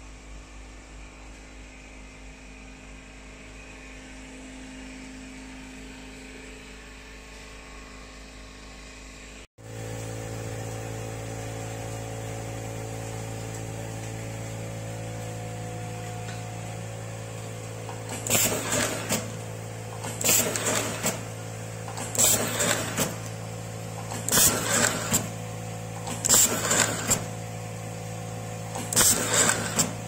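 Automatic cable-tie machine for wire harnesses running with a steady hum, and from just past halfway a short loud burst about every two seconds, six in all, as the hand-held strapping head ties nylon cable ties around the harness. A quieter low hum comes before the machine is heard, until a sudden cut about a third in.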